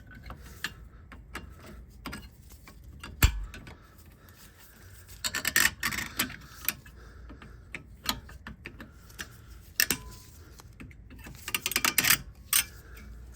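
Light metallic clicks and scrapes as the retaining spring is worked off a front brake caliper, with one sharp knock about three seconds in and two bursts of rapid clicking later.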